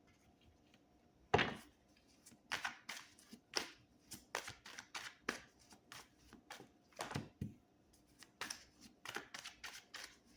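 Tarot cards being shuffled and handled by hand: a sharp tap about a second in, then a run of irregular light clicks and snaps of the cards.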